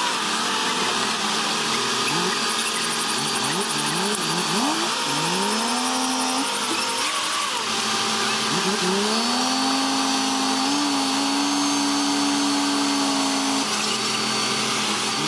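An engine revving in a string of quick rises, then climbing and holding at high revs for about four seconds before dropping away.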